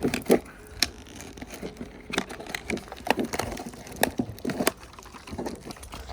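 Irregular clicks and light knocks of deadbolt lock parts and tools being handled.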